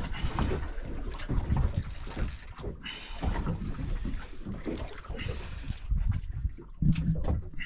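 Wind buffeting the microphone over the noise of a boat at sea, with several short hissy bursts about two, three and five seconds in.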